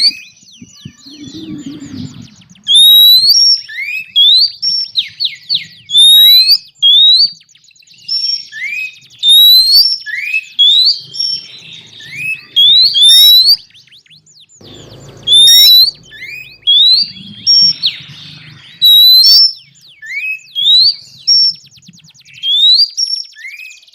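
Oriental magpie-robin (kacer), presented as a female calling to males, giving a long series of sharp upward-sweeping whistles about once a second, mixed with high thin notes and fast buzzy rattles. The uploader himself is unsure whether it is a mating call or a call to males.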